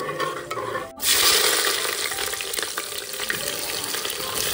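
Whole cumin, bay leaves and dried chillies stirred in hot oil in an aluminium pressure cooker, a utensil scraping the metal. About a second in, a loud, steady sizzle starts as chopped red onions go into the hot oil and fry.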